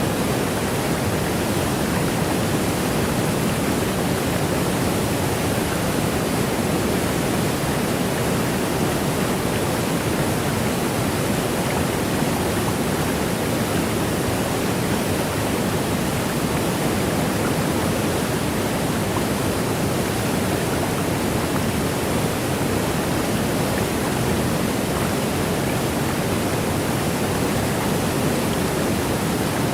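Waterfall: water rushing and cascading in a steady, unbroken wash of noise that never changes.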